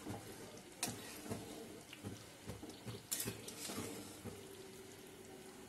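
A metal spatula stirring and turning meat pieces in thick curry in a steel pan, with a few light clicks and knocks of the spatula against the pan.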